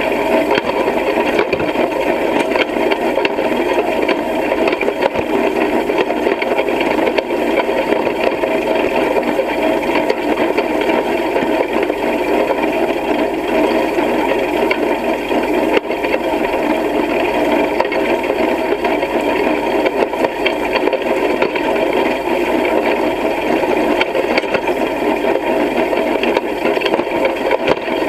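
Hay rake rattling steadily as it is towed through the field, its metal tine bars turning and sweeping cut hay.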